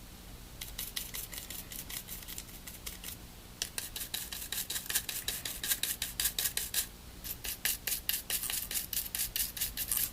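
Soft-bristled toothbrush scrubbing the alcohol-wetted conductors inside a disassembled smartphone: quick short brushing strokes, several a second, in three runs with brief pauses.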